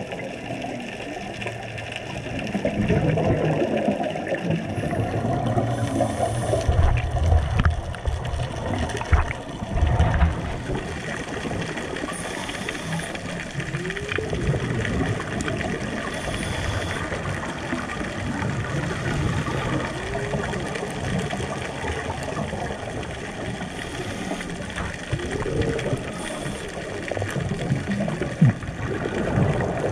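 Scuba breathing heard underwater: exhaled air bubbling and gurgling from a diver's regulator in waves every few seconds, with short hisses of inhalation through the regulator between them.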